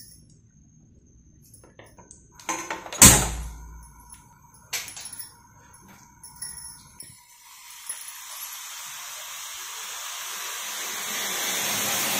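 Milk heating in a steel saucepan on a gas burner: a steady hiss that grows louder over the last few seconds. Before it come a few clicks and one loud clunk about three seconds in.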